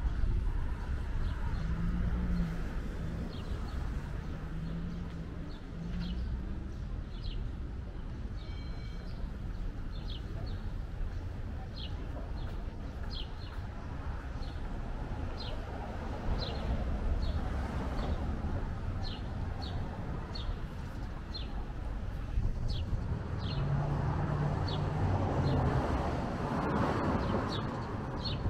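Main-street ambience: a steady low traffic rumble that swells as cars pass, with a short high tick repeating about once a second.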